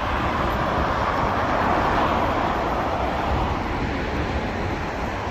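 Steady noise of motorway traffic heard from above, an even rush with no single vehicle standing out.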